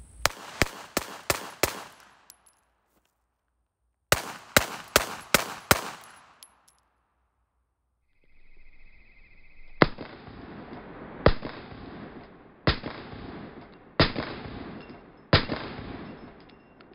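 Pistol shots: two quick strings of five shots, about three a second, then five slower, duller shots about a second and a half apart, each with a longer echo tail.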